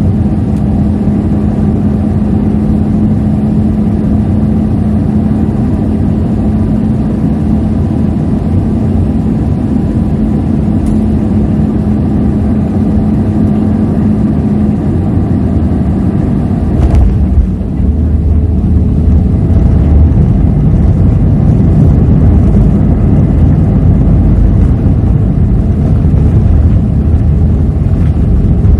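Airliner engines and airflow heard inside the passenger cabin, a loud steady noise with a steady hum. About 17 seconds in there is a brief knock, and then the sound grows louder with a heavier low rumble.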